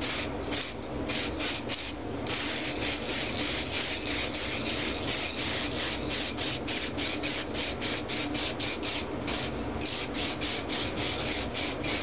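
Aerosol spray-paint can hissing as paint is sprayed onto an engine block in sweeping passes, with a few brief breaks.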